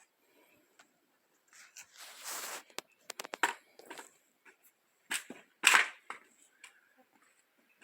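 Dry firewood being handled and stacked for a bonfire: irregular wooden knocks, cracks and crunches with short pauses between them, the loudest a pair of crunches a little after five seconds in.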